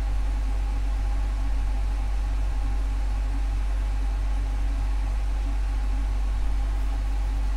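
Steady low hum with several steady tones over a faint even hiss, holding unchanged throughout.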